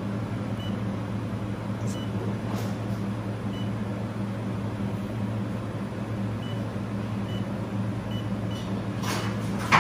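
Steady hum of a handheld fiber laser welding machine's running cooling system, with a constant low drone. Several short faint beeps from taps on its touchscreen keypad sound over it.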